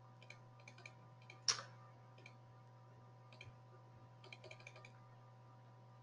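Faint computer keyboard typing: short runs of soft key clicks with one louder click about one and a half seconds in, over a steady low electrical hum.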